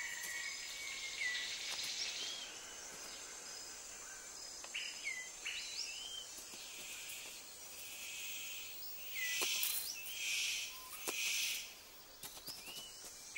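Rainforest ambience: a steady high insect drone with several short whistled bird calls that glide up and down. About nine to twelve seconds in come three louder bursts of hissing noise.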